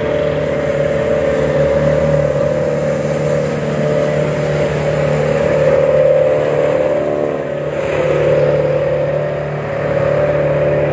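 Engine of a slow-moving vehicle carrying the camera, running at a steady, even pace with a constant drone, easing slightly twice in the second half.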